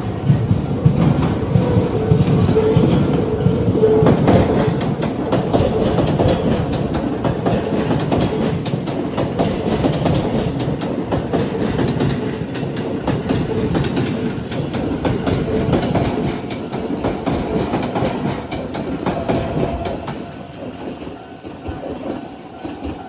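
Keisei AE-series Skyliner electric train running past: a continuous rumble of wheels on rail with clacking over the rail joints and some light wheel squeal. Loudest in the first few seconds, it tails off over the last few seconds as the train moves away.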